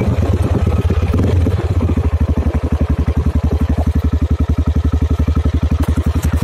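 Straight-piped exhaust of a 1996 Aprilia Pegaso 650's single-cylinder four-stroke engine, running loud. About a second and a half in, it settles into a fast, even idle beat of separate exhaust pulses.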